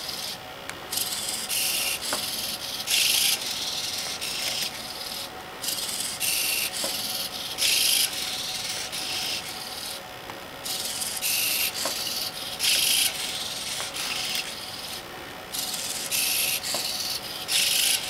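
Servo motors of a Meccano hexapod robot whirring in short repeated bursts as its legs step through a turn, the loudest bursts coming about every five seconds. A few faint clicks come between them.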